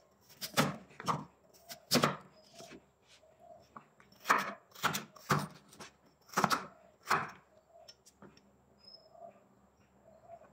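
Crinkle-cut potato cutter chopping down through a potato onto a wooden cutting board: an irregular run of sharp knocks, giving way to faint handling sounds in the last few seconds.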